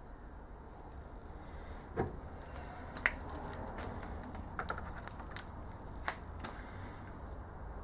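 A handful of sharp clicks and light knocks as a heavy metal casting is handled and set down on a stainless-steel kitchen scale; the clicks come irregularly, the sharpest about three seconds in, over a low steady hum.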